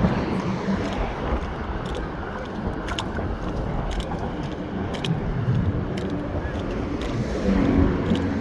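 Highway traffic passing: a steady rush of tyres and engines, with a few light ticks.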